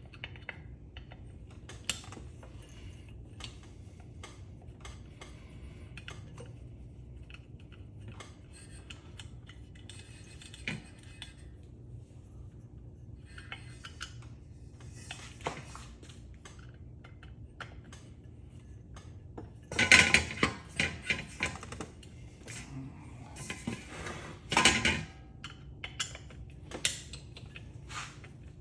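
Metal parts and tools clinking and clattering as a ceiling fan is taken apart by hand, with scattered light clicks and a loud run of clanks about twenty seconds in and another burst near twenty-five seconds.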